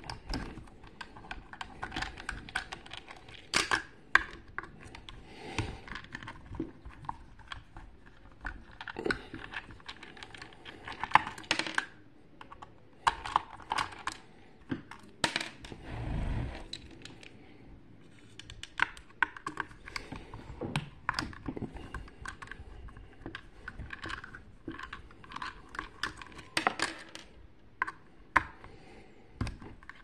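Small precision screwdriver working screws out of a Siemens Synchropower vacuum cleaner motor's metal housing: irregular clicks, ticks and scrapes of the metal tool on screws and casing. About halfway through there is a brief low rumble as the motor is handled and turned on the wooden desk.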